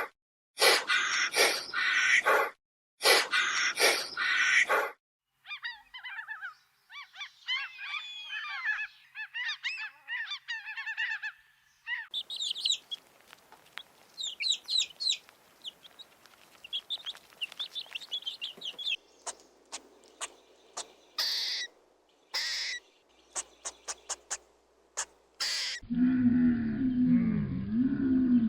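A run of different animal calls: loud, harsh repeated calls at the start, then birds chirping and twittering for several seconds, then scattered sharp calls, and a low, drawn-out call near the end.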